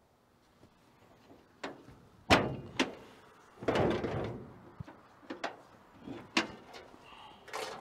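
Steel hood and hood latch of an old Chevrolet C20 pickup being worked open by hand: a run of sharp metal clunks and knocks, the loudest about two seconds in, with a longer scraping creak about halfway.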